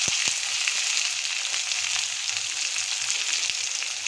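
Chopped onion frying in hot mustard oil in a karahi, a steady sizzle with light crackles as it is stirred.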